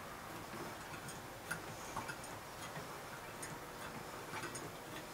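Hand-cranked wooden automaton mechanism turning: the crank and cam in the wooden box make faint, irregular clicks and ticks as the rowing figure moves.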